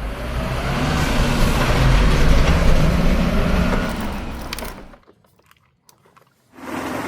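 Heavy work-vehicle engine running, a dense low rumble that grows louder and then fades away about five seconds in. After a short drop-out, a steadier engine hum with a low steady tone starts near the end.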